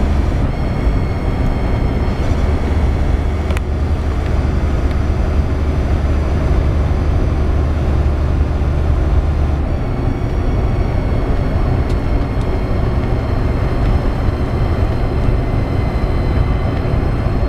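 Cummins diesel truck engine running, with a steady high-pitched whine over the low engine drone: the odd turbocharger noise that the owner takes for a turbo problem. The engine note steps up about ten seconds in.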